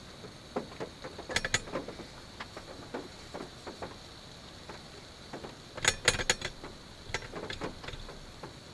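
Light clinks and knocks of a small metal griddle plate being set on an alcohol stove's pot stand and chestnuts being laid on it, with the loudest cluster of clinks about six seconds in.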